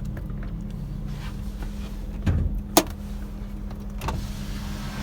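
Honda City ZX GXi's four-cylinder petrol engine idling steadily. A dull knock and then a sharp click come about halfway through.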